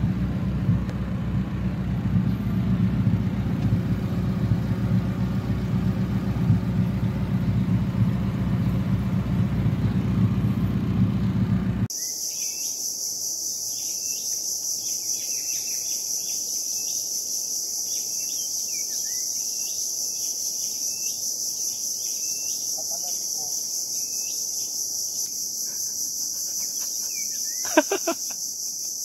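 For about the first twelve seconds, a loud low rumble like a car on the move. It then cuts off abruptly, and a steady high insect drone takes over, with small bird chirps under it and a brief louder sound near the end.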